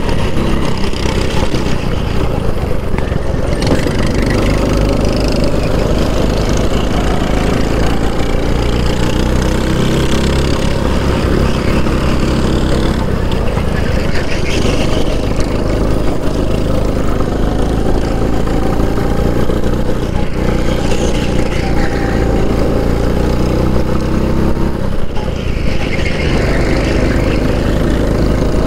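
Racing kart's engine running hard on the track, heard from the driver's seat, its pitch rising and falling with speed through the corners and climbing steadily near the end.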